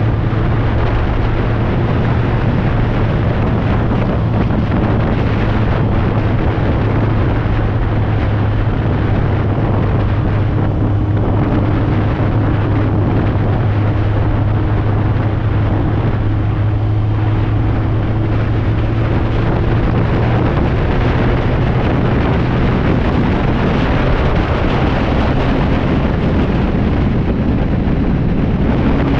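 BMW K1200R Sport's inline-four engine running at steady road speed, under heavy wind rushing over the microphone. The engine note weakens after about twenty seconds, and a higher engine tone comes back near the end.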